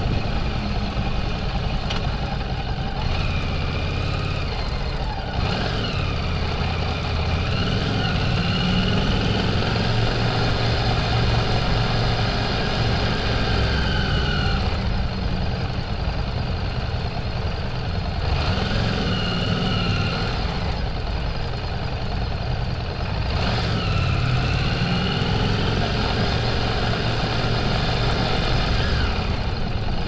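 Harley-Davidson Street 750's V-twin engine running as the motorcycle is ridden off the street and through a parking garage. Its pitch rises and falls several times with the throttle.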